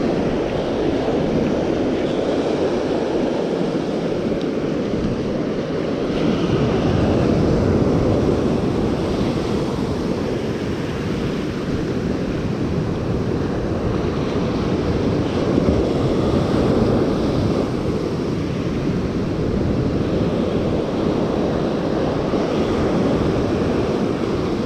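Ocean surf washing onto the beach, mixed with wind buffeting the microphone: a steady rush that swells and eases every several seconds.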